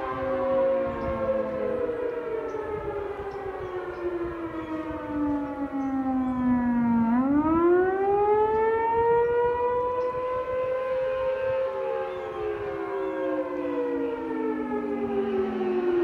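Outdoor storm warning sirens sounding together: a newly installed Federal Signal Thunderbolt and the other town sirens wail at different pitches. The strongest tone winds down to a low pitch about seven seconds in, climbs straight back up, and starts falling again near the end.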